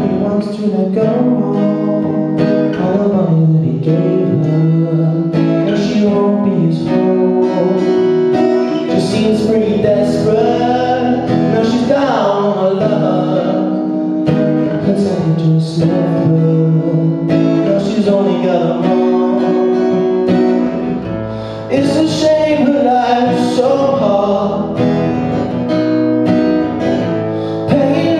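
A young man singing to his own strummed acoustic guitar.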